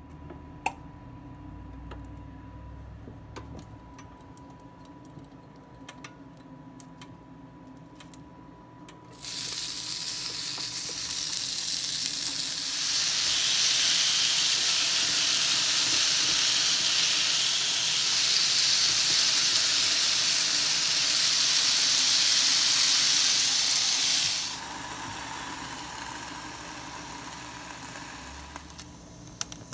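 Turkey bacon sizzling on a hot grill plate, a loud, even hiss that starts suddenly about nine seconds in and grows louder a few seconds later. About twenty-four seconds in it drops abruptly to a quieter sizzle that carries on under the closed, steaming grill lid.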